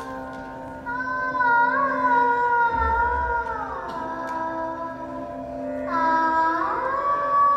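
A young girl singing into a microphone through a hall's loudspeakers, holding long notes that slide from pitch to pitch. A steady drone sounds beneath her voice for the first few seconds.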